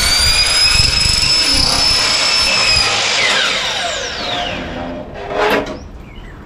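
DeWalt DWS780 12-inch sliding compound miter saw running at full speed with a high whine while it cuts through seamless rain gutter. About three seconds in the trigger is released and the blade winds down, the whine falling away over a second and a half.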